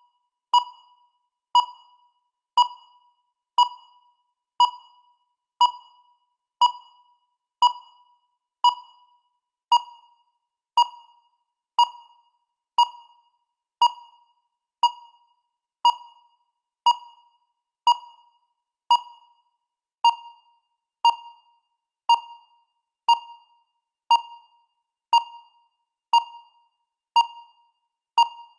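Countdown timer beeping once a second: a short electronic beep, the same pitch each time, that dies away quickly, repeated evenly about 28 times.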